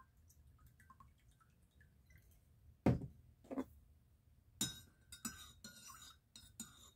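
Vanilla dripping from a bottle into a mug of coffee, then the bottle set down on the counter with a knock about three seconds in. From about the two-thirds point a metal spoon stirs the coffee, clinking repeatedly against the inside of the ceramic mug.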